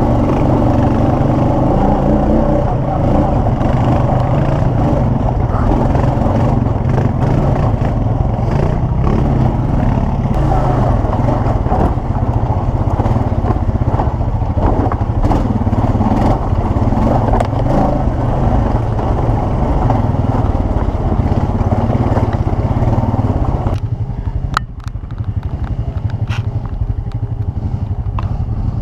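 ATV engine running steadily under way. About 24 seconds in the sound drops to a lower, quieter running, with a few sharp knocks.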